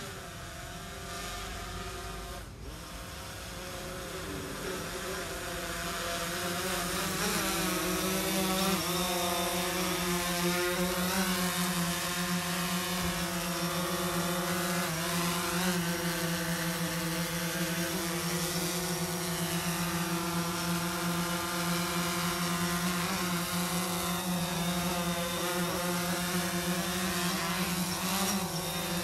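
A ground firework fountain burning, its spraying sparks giving a steady hiss with a strong buzzing drone on top. It grows louder over the first several seconds, then holds steady.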